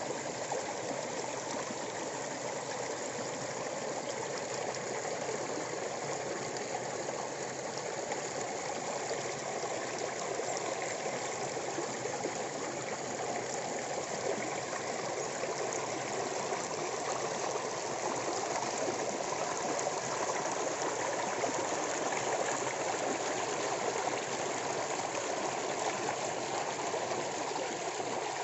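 Water cascading and splashing over stones, a steady, even rush of falling water.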